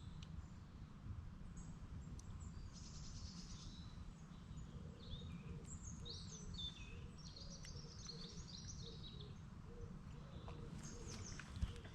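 Woodland birds singing and chirping, many short overlapping calls and trills, over a steady low rumble of wind.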